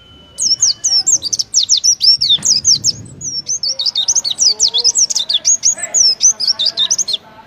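Oriental white-eye singing a long, fast run of high chirping notes, its rapid 'tembakan' song. The song starts about half a second in, dips briefly near two seconds, then runs on until it stops just before the end.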